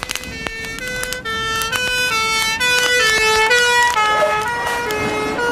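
Fire engine's two-tone siren, switching rapidly between a higher and a lower note about three times a second, growing louder after about a second.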